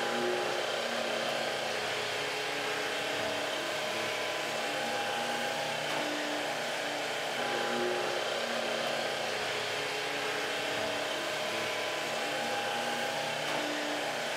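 Steady fan-like whirring noise, even in level throughout, with faint tones coming and going underneath.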